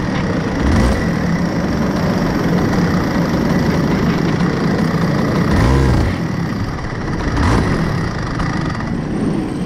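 Senior Rotax Max kart's 125 cc single-cylinder two-stroke engine idling roughly, heard from the kart itself, its pitch rising and falling briefly a few times.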